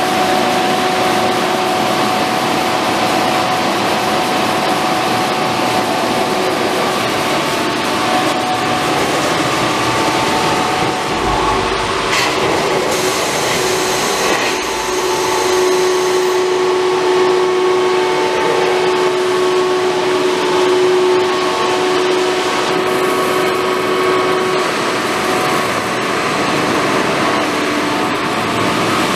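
Fish-pump system's electric pump motors and processing-line machinery running together: a steady, loud drone with a few steady humming tones through it.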